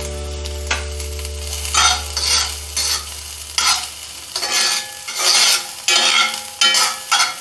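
Chopped onions frying in oil in a cast iron skillet, stirred with a metal spatula. The scraping strokes come about two a second from about two seconds in, over a steady sizzle. The onions are sautéed first to condition the new pan.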